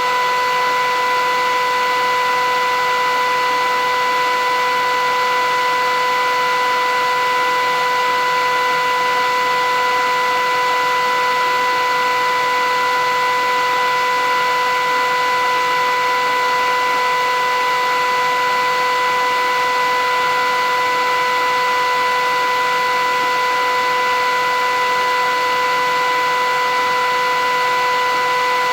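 Philips 8000 Series vacuum cleaner running steadily, a constant motor whine with a rush of air and no change in pitch or level.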